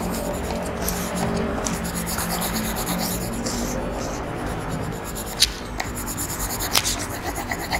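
Felt-tip markers rubbing and scratching on paper in short strokes as two people colour, over quiet background music. One sharp tap about two-thirds of the way in.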